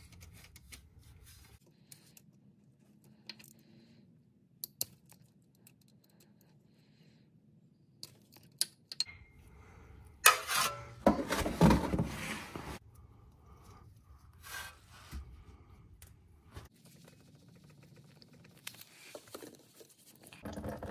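Scattered metallic clicks, taps and clinks of hand tools and parts during work to pull a coolant pipe off a BMW N55 engine block, with a louder rubbing, scraping stretch of a couple of seconds about ten seconds in.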